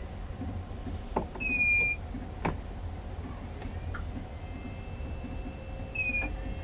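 Hugo battery backup unit chirping twice, about four and a half seconds apart: short, high, slightly falling chirps over a steady low hum. The chirp is the unit's alert that it is running on battery power.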